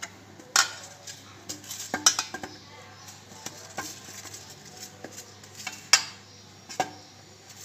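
Steel plate being handled while oil is rubbed over it by hand: a faint rubbing with several sharp metallic clinks, the loudest about two and six seconds in.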